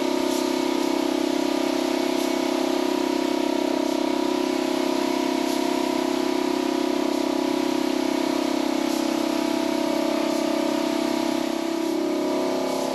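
Air-driven gravity-feed paint spray gun hissing steadily as red paint is sprayed, over a loud steady machine hum. The hum shifts slightly near the end.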